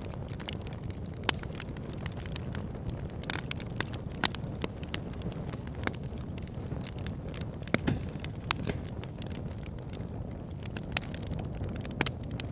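Wood fire burning in a fireplace: a steady low rumble of flames with irregular crackles and sharp pops from the burning logs, a handful of snaps louder than the rest.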